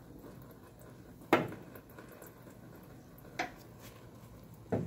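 Three sharp metallic clinks and knocks from the steel hydraulic lift cylinder and its parts being handled. The loudest comes about a second in, a fainter one midway, and another near the end.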